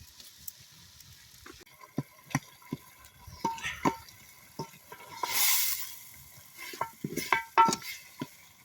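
A spoon stirring food in a metal cooking pot: a string of sharp, uneven knocks and clinks, several of them ringing. There is a short burst of hissing, like a sizzle, about halfway through.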